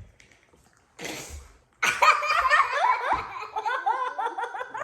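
Laughter: a short breathy burst about a second in, then a loud run of quick, high-pitched giggles.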